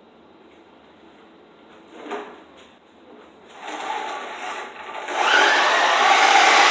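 RC car running, its motor whine rising and then falling in pitch over a rush of noise, loudest in the last couple of seconds.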